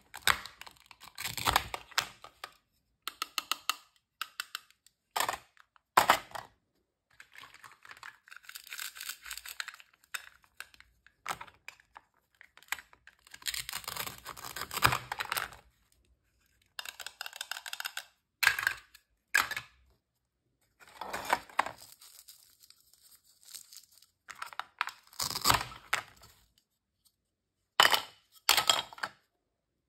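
Velcro-joined plastic toy fruit and vegetables being cut apart with a plastic toy knife: rasping tears as the velcro halves pull apart, mixed with sharp plastic clicks and knocks of the knife and pieces on a plastic cutting board. The sounds come in separate bursts a second or two long with short pauses between them.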